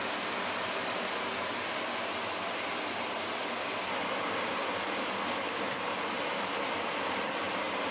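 Sliced onions frying in hot oil and spices in a cooking pot, giving a steady sizzling hiss.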